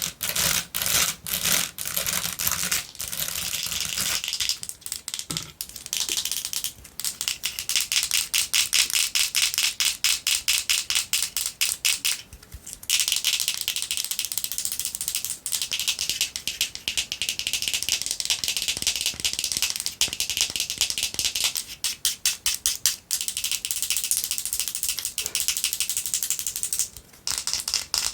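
Fast tapping and scratching with long fingernails: rapid clicks on a woven basket, then, after a short break about four seconds in, on a small lip mask container. The clicking comes in quick dense runs with brief pauses.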